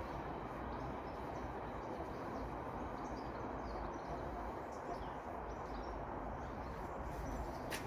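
Steady background noise with a few faint high chirps, and one sharp click near the end.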